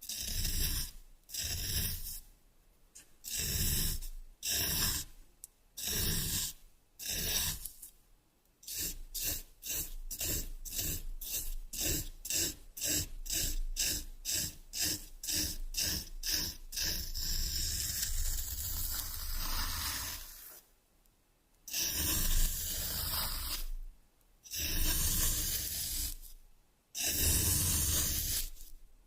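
Kinetic sand being scraped in strokes, each pass a gritty hiss. The strokes come about once a second at first, then quickly at two or three a second through the middle, and as longer drawn-out scrapes near the end.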